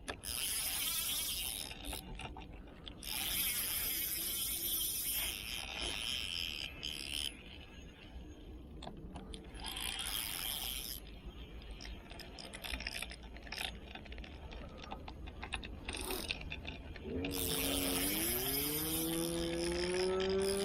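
Fishing reel clicking and whirring in repeated bursts of a few seconds each, as line is pulled out and wound back while a large fish is being played. Near the end a motor starts up and rises steadily in pitch.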